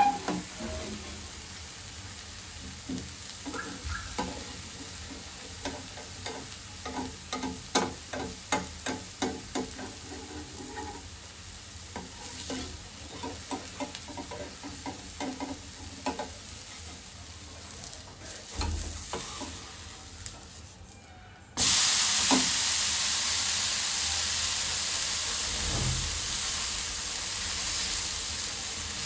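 A dosa frying on a hot flat griddle: batter crackling with many small pops. About two-thirds of the way through, the sound jumps suddenly to a loud, steady sizzle.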